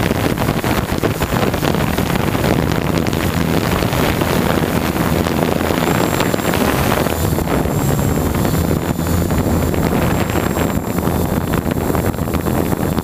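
JasGad M6 hexacopter's electric motors and propellers running steadily in flight, heard through the onboard camera's microphone with wind buffeting it. A faint high whine joins about six seconds in.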